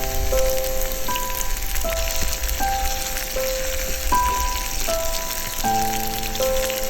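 Food sizzling and spitting as it fries in hot oil in a pan, a steady crackling hiss. A simple instrumental melody of held notes plays over it.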